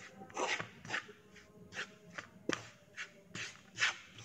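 Wooden spatula stirring dry flour in a nonstick frying pan: a run of soft, irregular scrapes and scuffs, roughly two a second.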